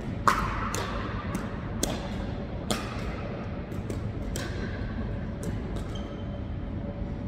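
Pickleball rally: sharp pops of paddles striking the hard plastic ball, with the ball bouncing on a wooden gym floor, echoing in the hall. The loudest hit comes about a third of a second in, and softer ones follow every second or so.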